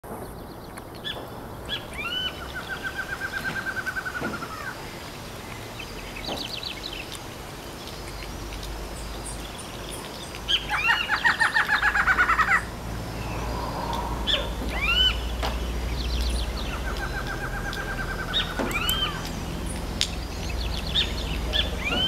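Barred antshrike songs: rapid runs of repeated notes, each run about two seconds long. The loudest run, in the middle, is the song played back through a speaker, and the bird answers with runs before and after it. Short rising single notes are scattered between the runs.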